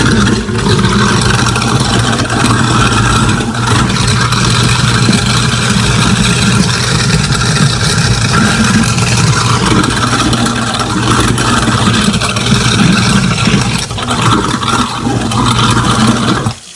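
Kitchen sink garbage disposal running with the tap on, grinding squeezed lemon halves: a loud steady motor hum under running water that cuts off suddenly near the end.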